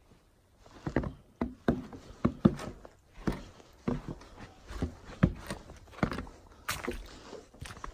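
Footsteps at a walking pace, about two a second, starting about half a second in, on the snow-dusted end of a footbridge and then a snow-covered path.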